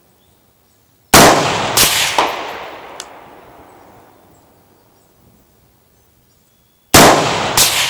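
AR-style rifle with a 16-inch barrel firing: two shots about two-thirds of a second apart, each followed by a long rolling echo that dies away over a few seconds. Near the end, two more shots follow at the same quick pace.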